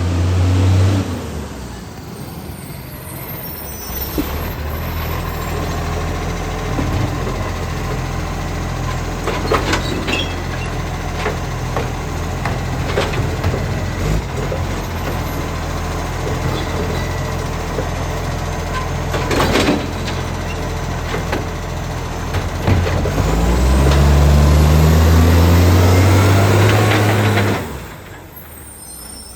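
Diesel engine of an International Acco recycling truck with an exhaust leak, running steadily with several sharp air-brake hisses and knocks. About 23 seconds in it revs up loudly for a few seconds, then the sound drops away sharply.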